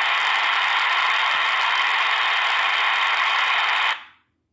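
Loud, steady, harsh static-like rasp from a Ring video doorbell's live view playing on a phone, cutting off suddenly about four seconds in. The owner presents this noise as the doorbell's recurring problem.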